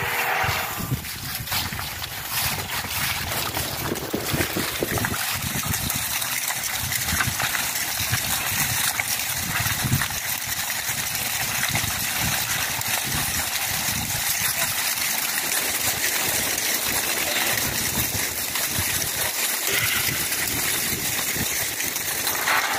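A flock of Swaledale ewes running past, many hooves trampling wet mud and fallen leaves in a steady, dense rush of hoofsteps.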